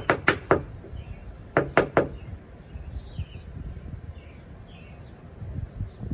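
The sander's dump-out dust collection bag being tapped to empty it: a quick run of three sharp knocks, then three more about a second and a half later.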